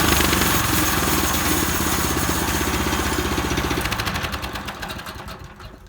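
Harbor Freight portable bandsaw mill's gas engine running, then shut off: its firing slows to separate beats and fades away over the last two seconds as it spins down.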